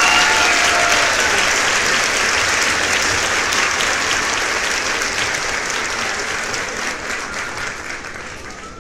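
Spectators clapping after a six is hit in a cricket match. The applause is dense at first and fades gradually toward the end.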